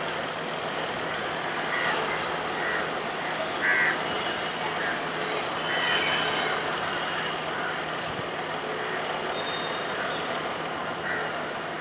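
A slow-moving train of tank wagons and passenger coaches passing: a steady rolling noise of wheels on the rails, with short higher-pitched sounds coming and going over it and a brief louder one about four seconds in.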